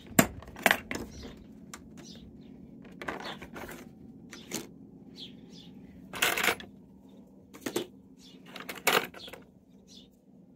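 Plastic latches of a Craftsman clear-lid organizer box snapping open with sharp clicks just after the start, then a run of knocks and rattles as the lid is lifted and a hand rummages among plastic bins and shaker bottles.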